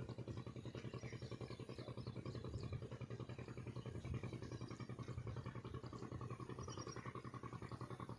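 An engine running steadily with a fast, even pulse, with a few faint high chirps above it.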